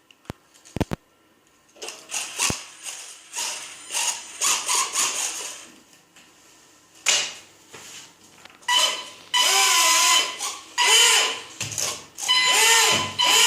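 Two tiny V911 tail motors spinning small propellers on a foam RC boat, a high whine in repeated bursts that rises and falls in pitch as the throttle is worked. A few sharp clicks come first, then short, irregular bursts, before the longer runs of whine in the second half.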